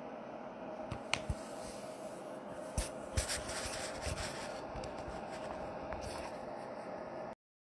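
Handling noise on a phone's microphone: rubbing and scraping with a few light knocks and clicks over a steady hum. The sound cuts off suddenly near the end.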